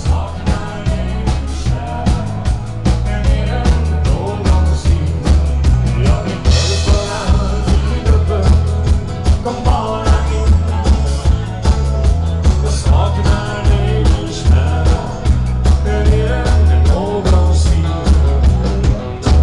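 Live band playing upbeat rock-and-roll dance music, loud, with a steady drum-kit beat, heavy bass and a singer's voice.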